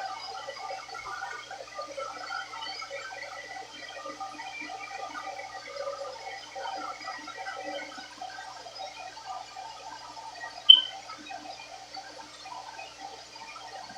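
Turbo Styler hand-held hair dryer running steadily, its airflow fluttering and rushing against the hair with a faint motor hum beneath. About ten and a half seconds in there is one brief sharp sound, the loudest moment.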